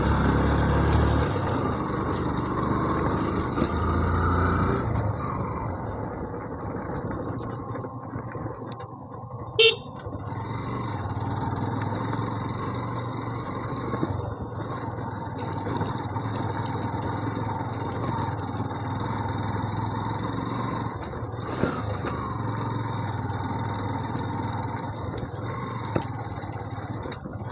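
Yamaha FZ V2's single-cylinder engine running under load on a steep dirt climb, which it struggles to pull even in second gear; the engine is louder for the first few seconds, then steadier. A short horn beep about ten seconds in.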